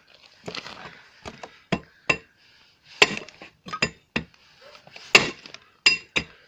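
Hammer blows on the steel kingpin sleeve of an MTZ tractor's final-drive housing, driving it out by hand: about ten sharp metallic strikes at uneven intervals, each with a brief ring. The sleeve is moving out under the blows.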